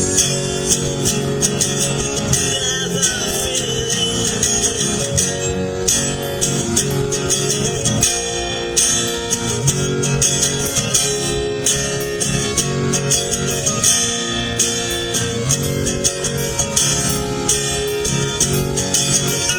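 Music from an audio-sample composition, with pitched instrumental parts over a dense, steady beat.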